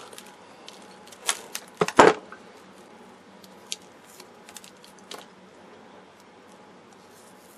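A few sharp clicks and snaps, the loudest about two seconds in, then a couple of faint ticks: pliers breaking the waxed cardboard casing off an old paper-and-foil capacitor.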